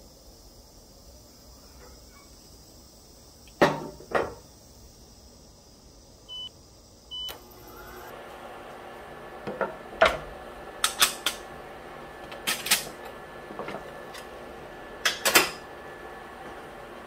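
Corelle Seka induction cooktop: two short beeps from its touch controls, then the hob starts heating with a steady electrical hum and a high whine. Two sharp knocks of cookware come before the beeps, and a run of sharp clicks and clatter follows.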